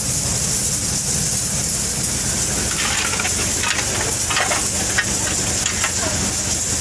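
Steady hiss of water spraying from a hose pipe during cleaning, over a low steady rumble.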